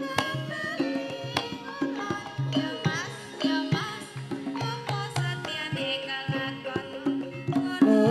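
Javanese gamelan music: a kendang hand drum beats a quick, busy rhythm over ringing pitched notes from the ensemble, accompanying dancing.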